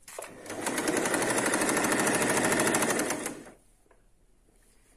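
Electric domestic sewing machine stitching a seam through two layers of fabric: it picks up speed over the first half-second, runs at a fast, even stitch rate for about three seconds, then stops.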